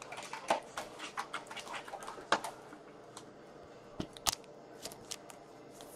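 Trading cards and their packaging being handled: a quick run of light crackles and clicks, then a few sharper separate clicks about four seconds in.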